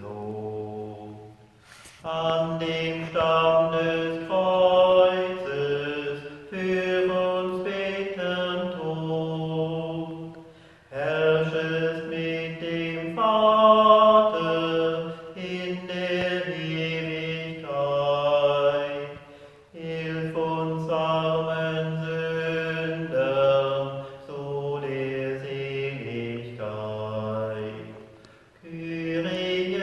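A man chanting a liturgical text unaccompanied, in long phrases of held notes, pausing briefly for breath about every nine seconds.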